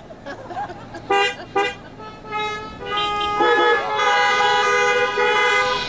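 Several car horns honking as applause after a punchline: two short toots, then more and more horns of different pitches joining in and held together for about four seconds.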